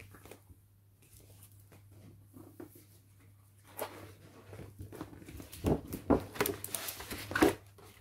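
Rustling and crackling of a large paperback big book's cover and pages as they are folded back and turned, starting about four seconds in, with several sharper crackles in the last few seconds.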